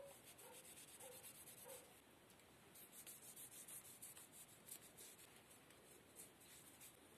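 Faint rubbing of a cloth rag wiping a chisel's wooden handle and copper ferrule in quick strokes, with a few small squeaks in the first two seconds.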